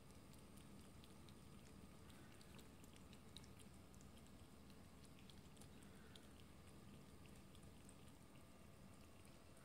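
Kittens eating minced chicken breast, faintly: a scatter of small irregular chewing and smacking clicks over a low steady hum.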